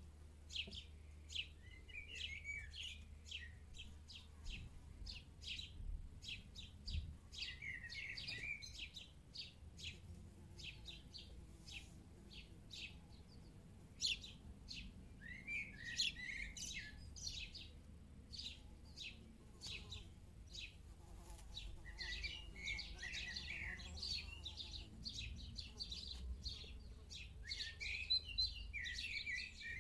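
Small birds chirping over and over in short high calls, with busier bursts of twittering every few seconds, over a faint low rumble.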